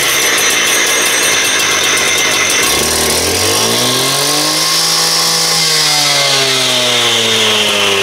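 Two-stroke engine of a gas-powered concrete cut-off saw running steadily after a choked start, then revved up from about three seconds in and eased back down near the end.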